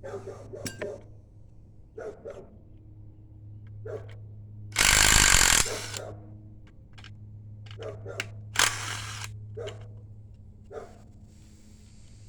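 Tools clinking and knocking on an engine, with a loud power-tool burst, typical of an impact wrench, lasting under a second about five seconds in and a shorter one near nine seconds, as the 10 mm upper plenum bolts come off, over a steady low hum.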